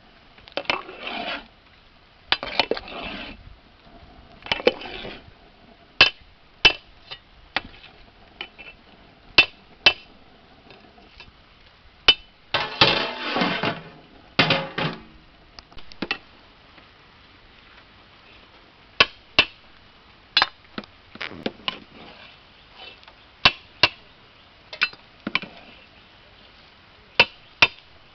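Metal ladle scraping and knocking against a large aluminium cooking pot as the biryani rice is stirred, with the pot's lid clanking on and off. Sharp metallic clanks come at irregular intervals between short stretches of scraping, the longest about halfway through.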